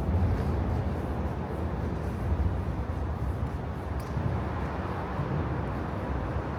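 Steady low rumble of outdoor city ambience, with a faint click about four seconds in.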